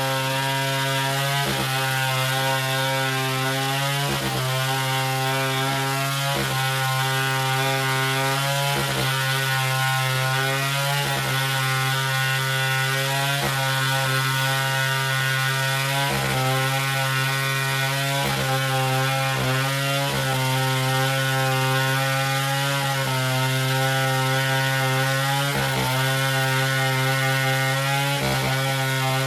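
Chainsaw running steadily at high speed, its engine note dipping briefly every two seconds or so.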